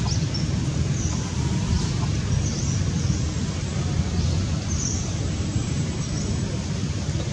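Steady low rumble, with short high chirps about once a second.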